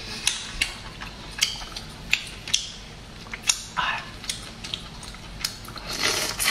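Close-up mouth sounds of a person eating crawfish tails: irregular wet smacking and chewing clicks, with a short slurp about six seconds in as a tail is sucked off the fingers.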